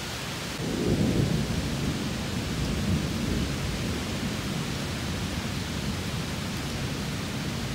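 Heavy downpour hissing steadily, with a roll of thunder that starts about half a second in, is loudest over the next second and then rumbles on, fading.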